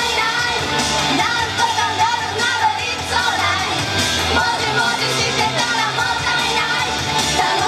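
Female pop singer singing live into a microphone over upbeat J-pop backing music.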